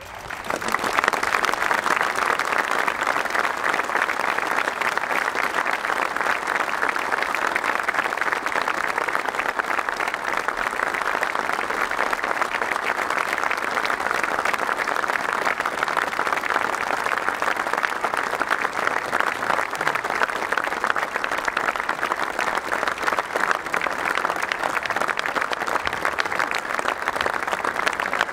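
A large stadium crowd breaks into applause about half a second in and keeps up a dense, steady clapping: a tribute applause for a player who has died.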